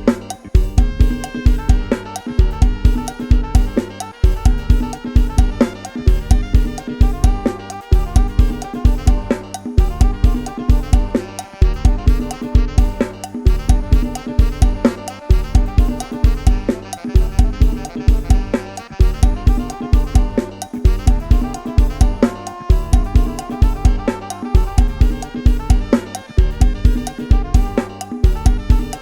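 Isan lam sing-style backing music: a programmed drum kit and sampled bass play a steady, driving 'lai hae' procession groove, with a melodic line over it.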